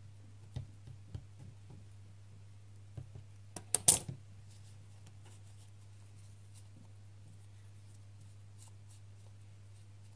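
Light taps and handling of paper, fabric and tape on a tabletop during card-making, with one short, louder scrape or rustle about four seconds in, over a steady low hum.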